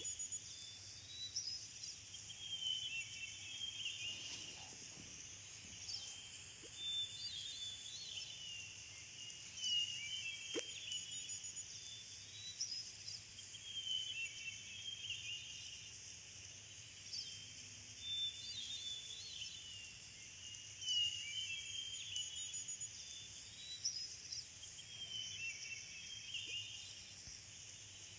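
Faint nature-ambience track of small birds chirping, short high calls over a low steady hum, the same stretch repeating about every eleven seconds.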